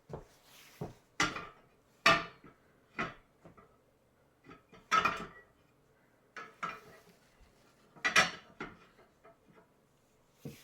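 Irregular metallic clanks and scrapes from working a manual tire changer, with the tire bar and tire being set against the steel rim to start mounting a new tire. There are about five louder clanks among several lighter knocks.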